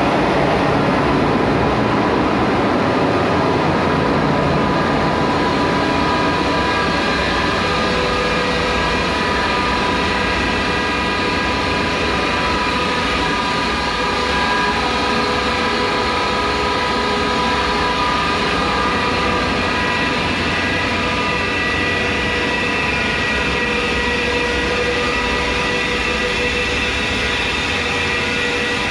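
Loud, steady drone of a tugboat engine room's running machinery, with several steady whining tones over the rumble that grow stronger from about seven seconds in.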